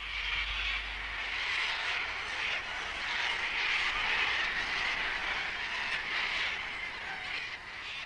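A huge flock of sulphur-crested cockatoos screeching all at once, a dense, continuous din of harsh calls.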